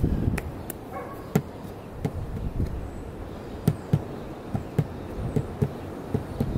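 Wind buffeting the microphone in irregular low thumps over a steady rumble, with a few sharp clicks, the loudest about a second and a half in and near four seconds in.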